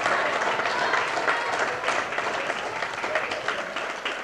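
A roomful of guests applauding, many claps running together with some voices among them, easing off slightly near the end.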